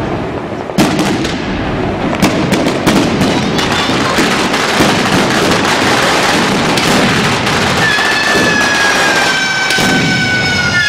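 A long string of street firecrackers going off: fast, continuous crackling and popping mixed with sharper bangs. About eight seconds in, a long high whistling tone, slowly falling in pitch, joins the crackle.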